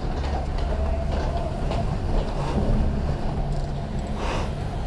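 Chairlift station machinery running: a steady low mechanical drone with scattered light clicks and a brief clatter about four seconds in.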